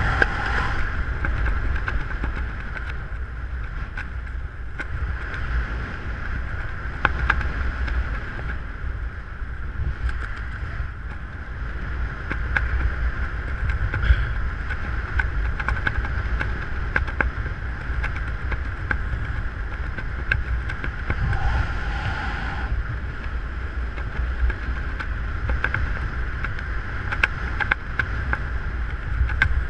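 Wind buffeting the microphone during a parachute descent under an open canopy: a steady rumbling rush with scattered small clicks.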